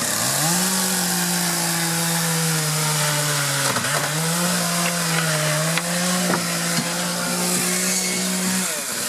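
Chainsaw revving up and running at high speed while cutting through old fencing, the engine note sagging and picking back up about four seconds in and again near the end.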